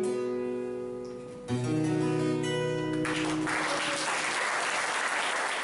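Acoustic guitar closing a tune: held notes ring and fade, then a final chord is struck about a second and a half in and left to ring. From about three seconds in an audience applauds.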